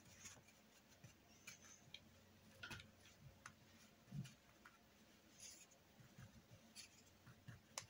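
Near silence with faint, scattered soft taps and light scrapes of a brush working acrylic paint on a painting surface.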